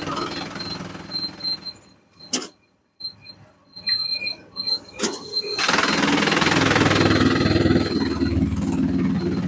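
Sawmill machinery running with a low engine hum and a thin high whine. It breaks off briefly into near silence about two seconds in. A louder, harsher run of machine noise starts just after halfway.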